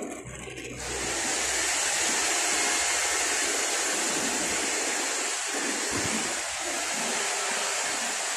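Oxy-fuel brazing torch flame hissing steadily while heating copper refrigerant pipe joints; the hiss grows louder about a second in.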